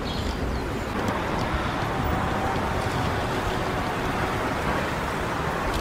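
Steady outdoor street noise with a strong low rumble.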